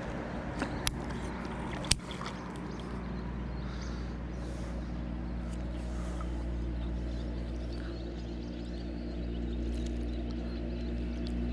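A steady low motor hum with several even tones, growing a little louder near the end, with two sharp clicks about one and two seconds in.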